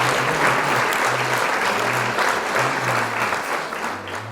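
Large crowd applauding and cheering, a dense steady clatter that fades near the end.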